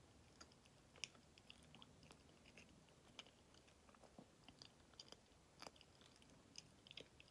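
Faint chewing of a soft Kamome no Tamago baked sweet: scattered small wet clicks and smacks of the mouth, with no steady rhythm.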